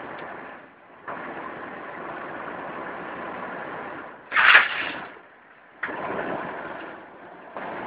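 A vehicle engine running, with a loud surge a little over four seconds in. The sound breaks off and starts again abruptly several times.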